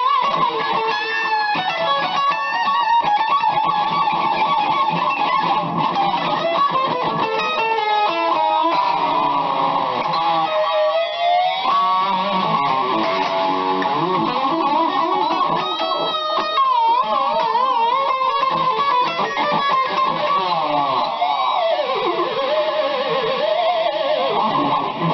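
BC Rich Mockingbird electric guitar with a Floyd Rose tremolo being played, single-note lines and chords with the pitch repeatedly wobbling and swooping under the tremolo bar, a test of whether it stays in tune.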